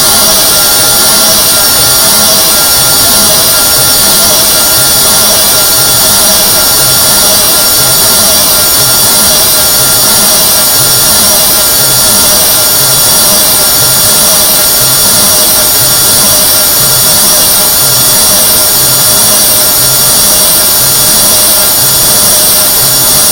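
Harsh, very loud hissing noise sound effect, steady throughout, with several fixed shrill tones running through it and a faint low pulse repeating underneath.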